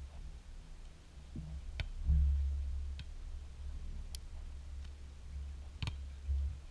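Wind rumbling on the microphone in uneven gusts, with three sharp smacks about two seconds apart: hands striking a beach volleyball during a rally.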